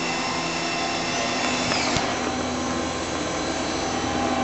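Star SV-20 CNC Swiss-type lathe running, a steady machine whir with several steady tones. About two seconds in, a high whine falls in pitch and ends in a sharp click.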